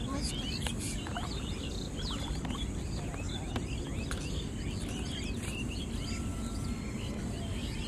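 Small birds chirping and twittering, many short high calls overlapping through the whole stretch, over a steady low background rumble.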